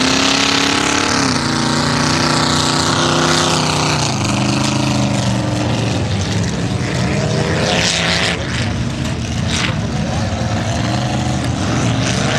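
Big red lifted Chevy pickup's engine under hard throttle as the truck runs across the field. The pitch climbs steeply at first, then drops about a second in and again about four seconds in, like gear changes. It runs lower and fainter after about six seconds and revs up again near the end.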